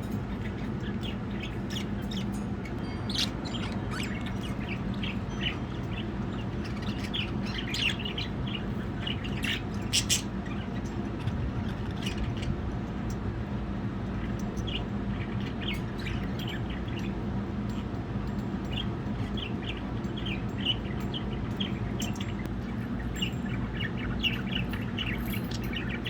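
Pet budgerigars chirping and chattering, with many short high chirps scattered throughout, over a steady low hum.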